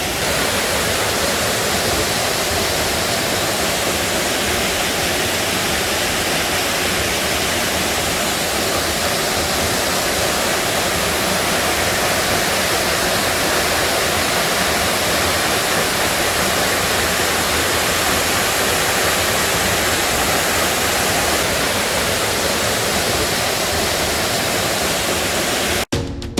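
Mountain-valley waterfall: a steady, even rush of falling water, cut off abruptly near the end.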